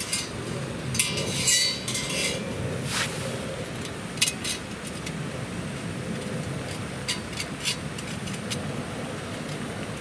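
Metal clinks and scrapes of stainless steel camping cookware being handled: a perforated stove stand and cups knocking together, in a few short bursts over a steady rushing background noise.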